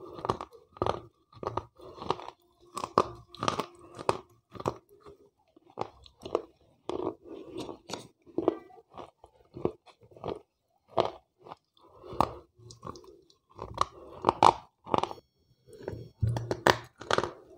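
Wet slate pencils being bitten and chewed close to a clip-on microphone: a run of short, sharp, gritty crunches, roughly one or two a second with uneven gaps.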